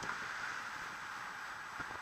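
Steady wind noise over a Drift Innovation HD170 action camera's microphone on a road bike at race speed, mixed with tyre and road noise and scattered small knocks.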